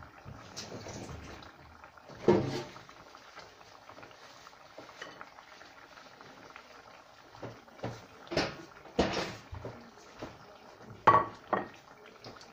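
Kitchen handling sounds: scattered knocks and clinks of dishes, pots and cupboard doors being moved, the loudest about two seconds in and again near the end.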